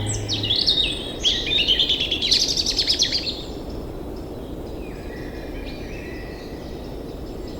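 Birdsong over a steady outdoor ambience: a run of chirps and quick falling whistles ending in a fast trill, then only faint distant calls after about three seconds.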